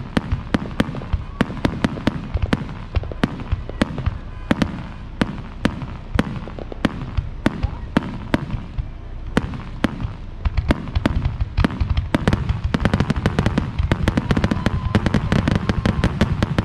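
Fireworks display: aerial shells launching and bursting in a steady run of sharp bangs and crackles, several a second, over a low rumble. The bangs come thicker and almost without a break from about ten seconds in.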